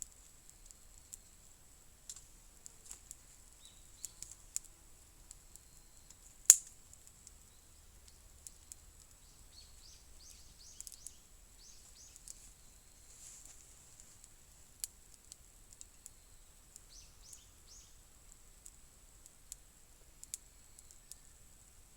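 Small wood fire crackling: scattered faint pops and ticks, with one sharp, much louder crack about six and a half seconds in.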